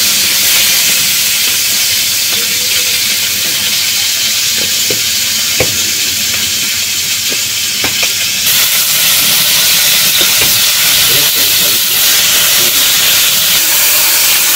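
Taki fish frying with onion, garlic and green chillies in a metal wok, sizzling steadily, with the metal spatula scraping and clicking against the pan now and then as it is stirred.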